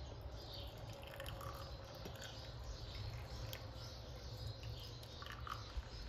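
Quiet background: a steady low hum with a few faint scattered clicks and short faint chirps.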